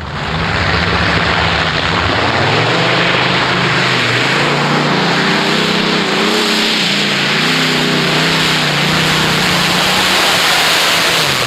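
Pulling tractor powered by twin Rolls-Royce Griffin V12 aero engines running loud at full power during a pull, with a wavering engine drone that climbs in pitch about two seconds in and then holds. The sound cuts off suddenly at the end.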